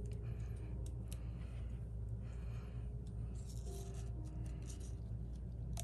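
Cardstock rustling and rubbing in several short scratchy spells, with a few light taps, as die-cut paper leaves are handled and pressed onto a card.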